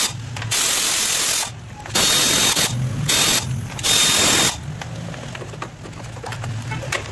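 Air ratchet running in four short bursts, each under a second, spinning off the nuts that hold the engine cover, followed by quieter handling noise as the plastic cover is worked loose.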